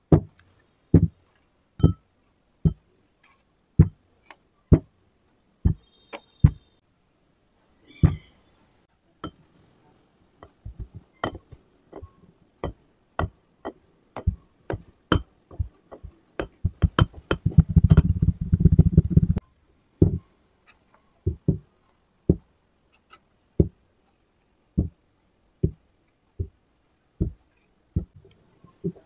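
Kinetic sand being packed down into a tall drinking glass with a tamper: sharp knocks and clinks against the glass, about once a second at first, then faster, with a dense run of heavier thuds about two-thirds of the way through.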